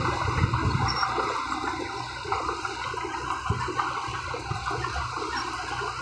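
Crawler bulldozer at work: a steady low diesel drone under a continuous rushing, crackling noise of loose soil and stones moving.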